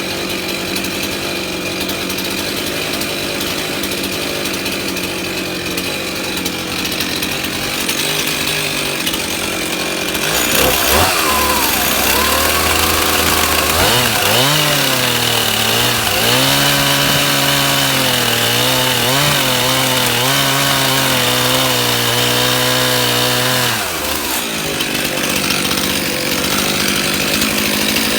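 Chainsaw running while cutting a saddle notch into a log. About ten seconds in, its note changes to a lower, wavering pitch that settles and holds for about ten seconds, then switches back to its earlier sound a few seconds before the end.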